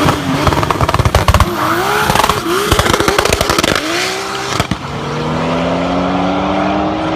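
Volkswagen Golf R32's VR6 engine revving hard, its pitch sweeping up and down, with rapid crackling pops from the exhaust. After a break near the middle, the engine note settles into a steady tone that rises slowly in pitch as the car accelerates.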